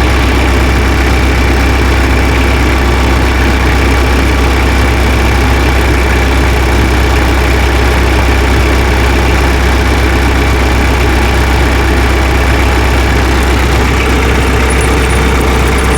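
Tractor engine idling steadily, a constant low drone with no change in speed.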